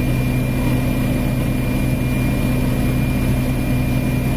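Helicopter's engine and rotor heard from inside the cabin in steady flight: a constant low drone with a thin, steady high whine on top.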